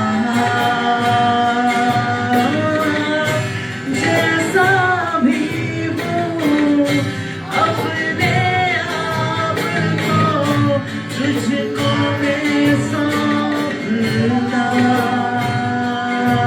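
Live worship-band music: a voice singing a Hindi worship song over guitar and a steady beat.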